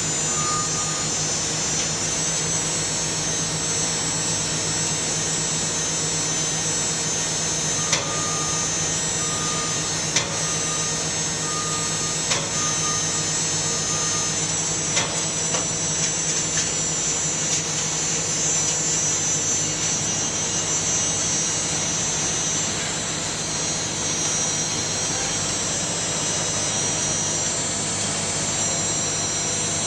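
Steady drone of the closed-door baler's running hydraulic power unit and plant machinery, with a high whine on top. A few sharp clicks and knocks come as the baling wires are tied off by hand, and a high, repeated short beeping sounds near the start and again for several seconds about a third of the way in.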